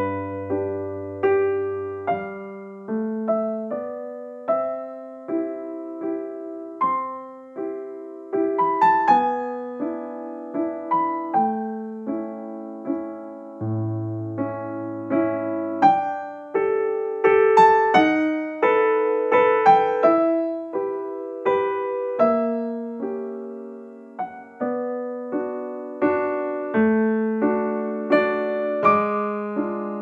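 Background piano music: a melody of single notes and chords, each struck and then fading.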